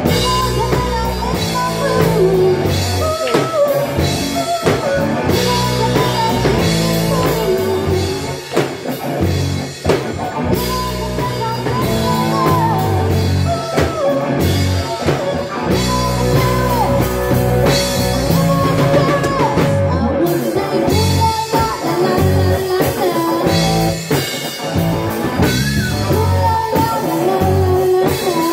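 Live rock band playing: a woman sings a melody into a microphone over electric guitars and a drum kit keeping a steady beat.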